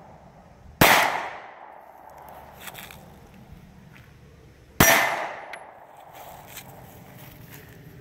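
Two shots from a Smith & Wesson M&P Shield 9mm pistol, about four seconds apart, each sharp crack dying away over about a second.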